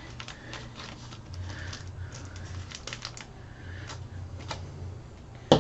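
Scattered light clicks and rustling of a trading card's plastic packaging being worked open by hand, over a low steady hum, with one sharp louder click near the end.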